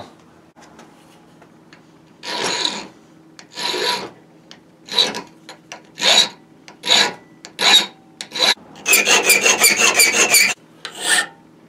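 Round file rasping on a brass side plate clamped in a bench vise. It starts about two seconds in with slow single strokes about a second apart, then a quick run of short strokes for about a second and a half, and one last stroke near the end.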